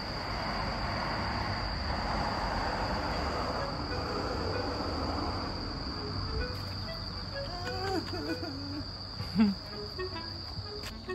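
Insects calling in a steady, unbroken high-pitched trill. A brief low thud comes about nine and a half seconds in.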